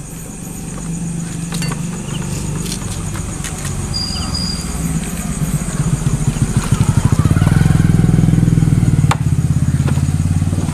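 A small engine running with a low, even putter, growing louder about six seconds in and staying loud until near the end. A sharp click about nine seconds in.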